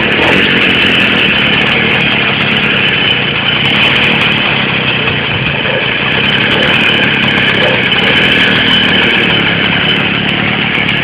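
Victa 125 two-stroke engine on a motorised bicycle, running steadily.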